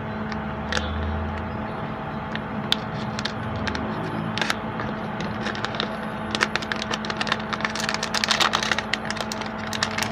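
Plastic packaging being handled and unwrapped: scattered crackles and clicks that grow denser in the second half, over a steady low electrical hum.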